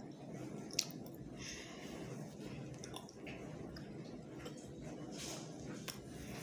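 Chocolate being chewed close to the microphone: soft, wet chewing and mouth sounds, with one sharp click about a second in.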